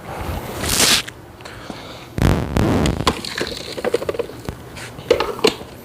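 Dirt and kitty litter emptied from a Hoover vacuum's dirt bin: a sudden crackling, rattling rush about two seconds in, then scattered clicks and scrapes of the plastic bin.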